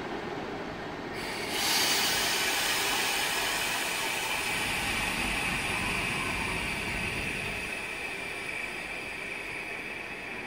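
EP07 electric locomotive and its passenger coaches rolling in and braking to a stop, with a high squeal and hiss that set in sharply about a second in and slowly die away as the train slows.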